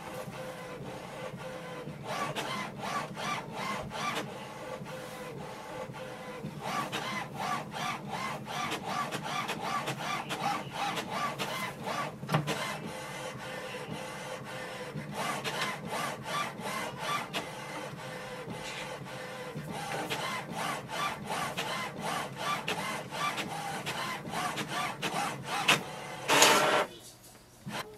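HP OfficeJet Pro 9010 inkjet printer printing its print-head alignment page: the print carriage shuttles back and forth with steady mechanical whirring and many short clicks as the sheet feeds through. It stops with a short louder sound near the end.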